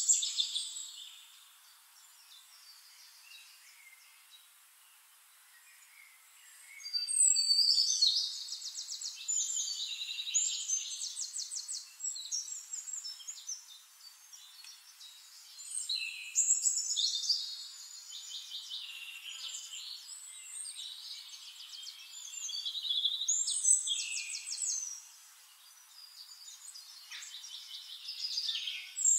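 Songbirds singing: phrases of fast repeated, trilling notes, each a few seconds long, coming back every several seconds, after a quiet start of a few seconds.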